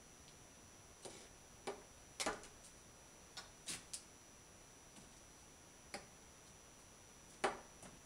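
Faint, irregular sharp clicks and taps, about nine in all, as cats scrabble and bat at a wand toy bird on a canvas camp cot. The loudest tap comes near the end.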